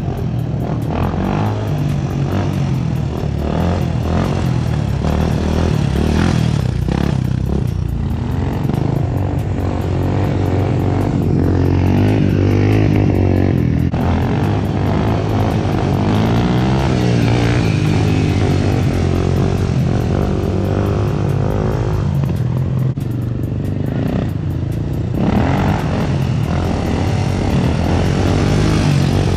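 Motorcycle engine running, its pitch rising and falling as the throttle is worked through wheelies, with music playing underneath.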